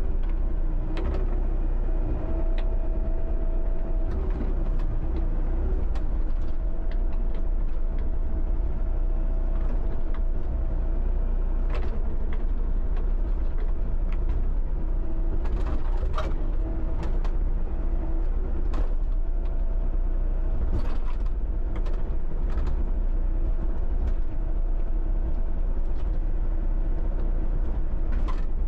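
John Deere 60D mini excavator's diesel engine running steadily under working load, with a held tone that comes and goes, and scattered clanks and knocks from the bucket working dirt and stumps.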